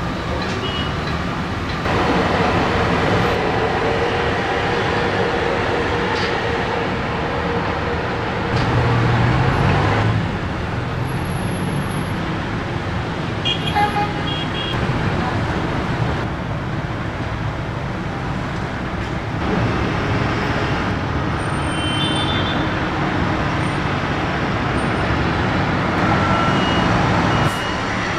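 Steady din of road traffic and heavy diesel machinery, with a few short high-pitched beeps or toots about halfway through and again later on.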